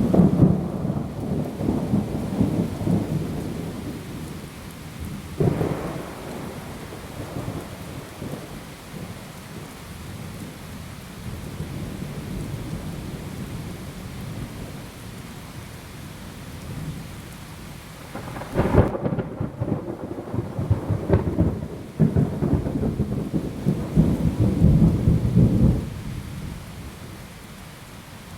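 Thunderstorm: thunder rumbling at the start, a sharper crack about five seconds in, then a stretch of steady rain, and a loud thunderclap about two-thirds of the way through followed by several seconds of heavy rumbling. Rain hisses underneath throughout.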